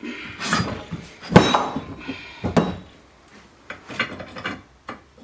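Clanks and knocks of the heavy metal parts of a Record 23 quick-release vice being handled and shifted while it is stripped down: a string of separate knocks, the loudest about a second and a half in.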